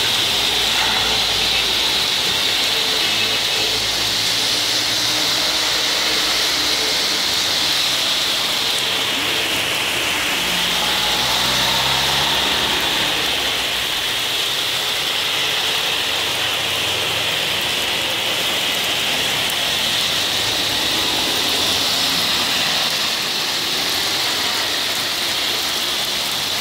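Heavy rain falling steadily on a wet road, mixed with the hiss of car tyres through surface water. Engines pass now and then.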